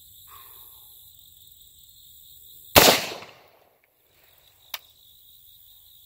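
A single rifle shot about three seconds in, sharp and loud with a short dying tail: a check shot fired after scope adjustments while zeroing the rifle. Crickets chirr steadily in the background.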